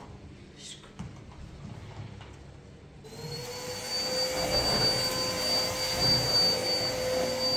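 A small electric motor starts about three seconds in and runs up to a steady speed, giving a high whine over a hum and a rush of air noise.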